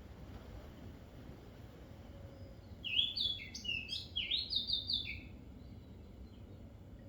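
A songbird singing one quick phrase of high, clear notes, some sliding up and some stepping down, starting about three seconds in and lasting about two seconds, over a faint steady outdoor hum.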